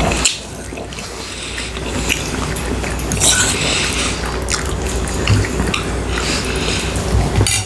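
Close-up wet chewing and eating sounds from a meal of ribs in sauce, rice and beetroot, with scattered small clicks.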